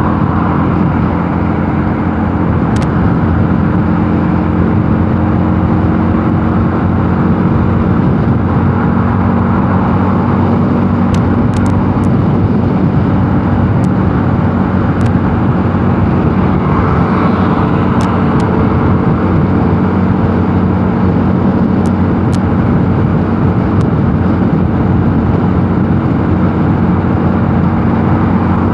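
Mondial Nevada 250 motorcycle engine running at a steady cruising speed under wind and road noise, the engine note holding level throughout.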